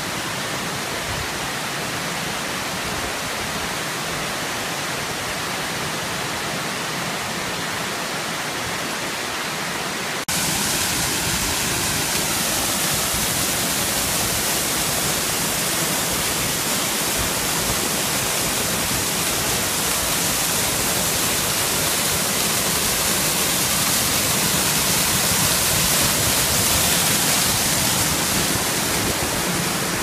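Waterfall and snowmelt cascade rushing, a steady even noise of falling water. About ten seconds in it cuts to a louder, hissier stretch.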